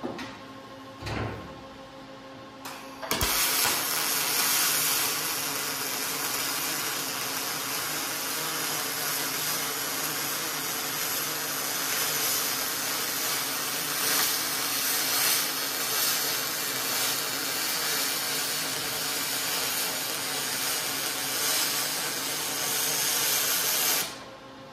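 Aluminium being MIG-welded with a spool gun: a steady hiss from the arc, which strikes suddenly about three seconds in and stops abruptly near the end. The spool gun is running smoothly.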